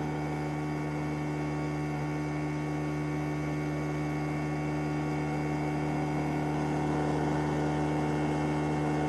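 Z-axis motor of an Elegoo Mars 5 Ultra resin 3D printer running on with a steady hum, growing a little louder near the end: the axis is failing to stop at its home position, a fault the owner thinks means the printer is broken.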